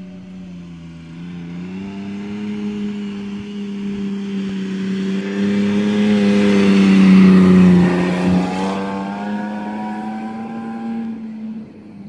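Toyota FJ Cruiser's 4.0-litre V6 engine and tyres as the SUV approaches and passes close by, getting louder to a peak about seven seconds in, then fading as it pulls away.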